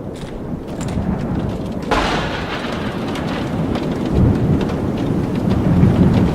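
Thunderstorm: steady rain with thunder, a sudden sharp clap about two seconds in followed by rolling rumbles that swell again twice.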